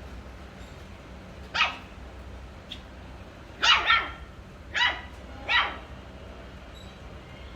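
A dog barking five times: a single bark, then a quick double bark, then two more single barks about a second apart, over a low steady background hum.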